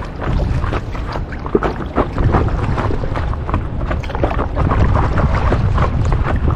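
Wind buffeting the microphone with a steady low rumble, over irregular splashes and lapping of water as a paddle board is paddled across a lake.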